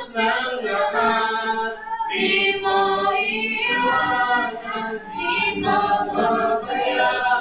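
Live praise-and-worship singing by a group of voices, women's voices to the fore, with guitars and bass guitar playing beneath.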